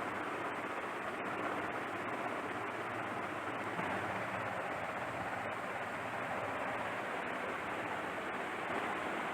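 Steady rushing background noise with no cracks or knocks.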